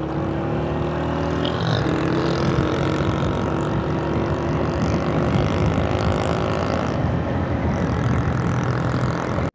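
Honda CG 125's single-cylinder four-stroke engine running steadily while riding, over an even rush of noise.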